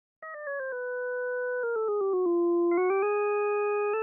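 Computer-generated tones from the Desmos graphing calculator, a buzzy electronic note clicking from pitch to pitch. It starts a quarter second in with a quick run of four falling notes, holds, steps down again to a low held note, then climbs back up in quick steps near the end.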